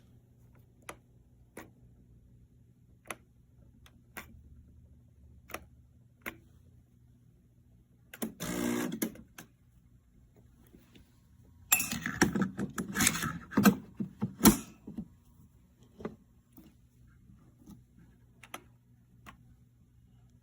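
Scattered sharp clicks and knocks of hard objects being handled, with a brief rattle about 8 seconds in and a few seconds of dense clattering about 12 seconds in, over a low steady hum.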